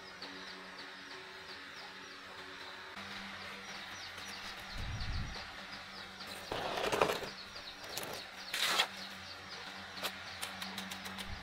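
Rainforest ambience: fast, evenly repeating high chirps over a steady background, with two short bursts of noise in the second half.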